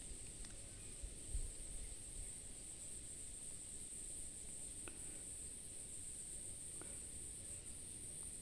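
A steady, high-pitched insect chorus, crickets-like, running without a break over a faint low rumble, with a couple of faint short clicks.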